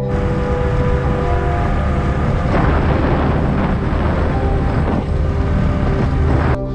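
Honda MSX125's single-cylinder engine and the rush of wind on the microphone while riding along a road at speed, the wind noise loudest in the middle. It cuts off suddenly near the end.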